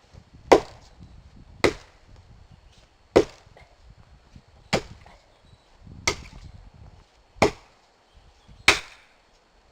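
Axe chopping into a standing tree trunk by hand: seven heavy, evenly paced blows, about one every second and a half, each a sharp crack of the blade biting into the wood.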